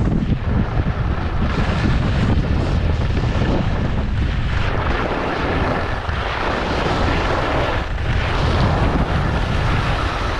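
Wind rushing over the camera microphone while skiing fast downhill, with the hiss and scrape of skis carving on packed, groomed snow.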